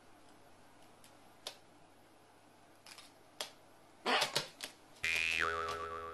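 Quiet room with a few faint clicks, then three short noisy bursts in quick succession about four seconds in. About a second later a musical sound effect starts, with a tone that falls and wavers.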